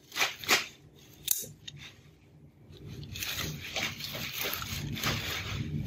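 Scissors snipping and plant stems and leaves rustling as they are handled, with a few sharp clicks in the first second and a half, then softer steady rustling.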